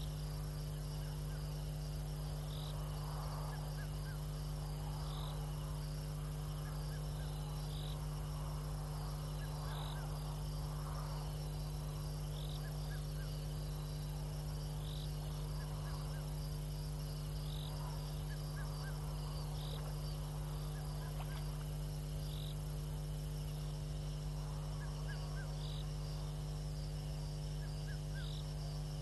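Steady low electrical hum under night ambience in the bush. A short high call repeats about every two seconds, with scattered high chirps from night insects or frogs.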